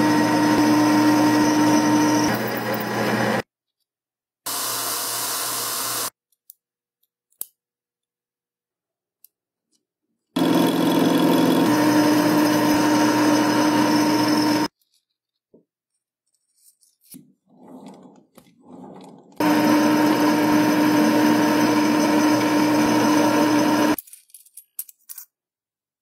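Metal lathe spinning and cutting a small stainless steel rod with a carbide insert tool: a steady machine whine with a held pitch, heard in three stretches of about four seconds each that cut off abruptly, with a shorter, quieter hiss after the first.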